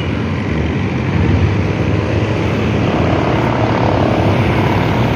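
Steady low rumbling street noise, with no voices.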